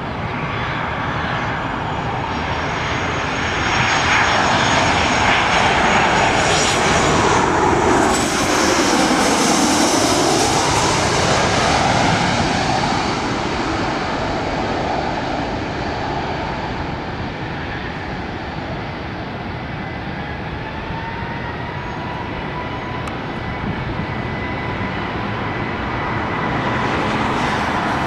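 Boeing 737-700's CFM56 turbofan engines passing low overhead on final approach: a jet roar with a high whine that swells, peaks with a sweeping whoosh about nine seconds in, then fades to a softer, steady rumble.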